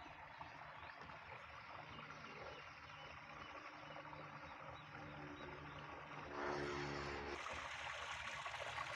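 Faint water trickling from a hose into a concrete cattle trough. A brief, louder pitched sound lasting about a second comes about two-thirds of the way in.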